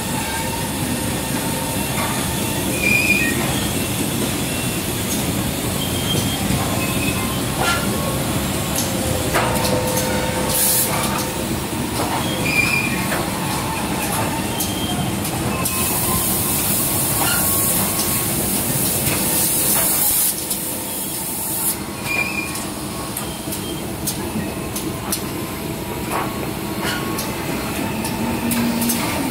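Ceramic tableware production-line machinery running: a steady mechanical din with scattered clicks and knocks, and a high hiss lasting about five seconds midway.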